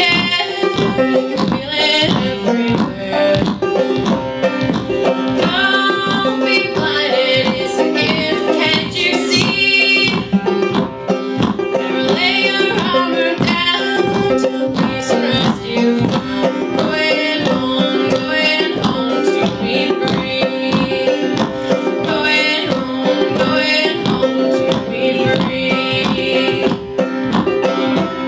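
An acoustic string band playing a bluegrass-style tune on banjo, mandolin, acoustic guitar and upright bass, with a steady plucked rhythm.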